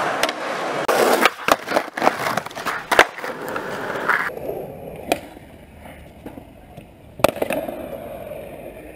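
Skateboard wheels rolling on concrete, broken by several sharp clacks of the board hitting the ground. The background rolling noise changes abruptly about a second in and again past the four-second mark.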